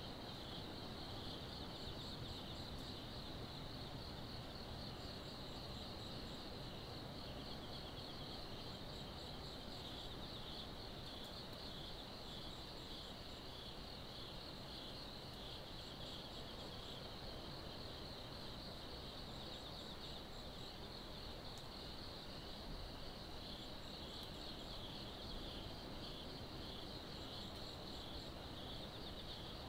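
Night insects trilling steadily in a continuous high, pulsing chorus, with a second, higher and fainter insect chirping in short runs every few seconds, over a low, even background hum.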